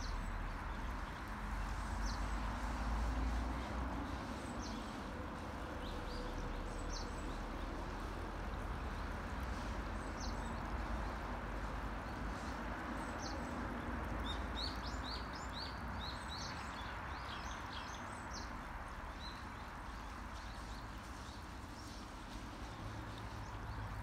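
Mountain stream water trickling steadily, with small birds giving short high chirps throughout and a quick run of them a little past halfway; a low rumble underneath, strongest in the first few seconds.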